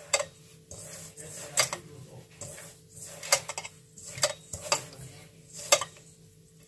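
Hands rubbing oil into dry semolina and gram flour in a stainless steel bowl, with about six sharp clinks against the bowl spread over the few seconds, over a faint rustle of the crumbly mix.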